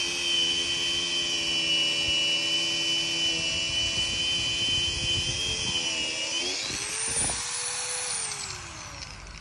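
Electric angle grinder (950 W, 220 V) grinding into a wooden log with a steady high whine. About six seconds in it is lifted off the wood and its pitch rises sharply as it spins up free, then the pitch falls as it winds down.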